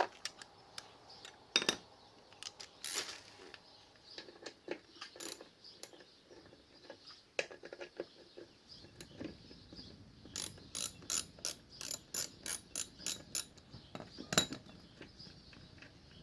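Socket ratchet wrench worked on a 12 mm bolt: scattered clicks and taps, then from about ten seconds in a run of about a dozen even ratchet clicks, roughly three a second, followed by one louder knock.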